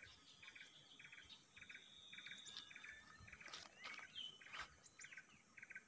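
Quiet lakeside ambience: faint, regular chirping, about two short pulsed calls a second, with a brief whistled call and a couple of faint clicks near the middle.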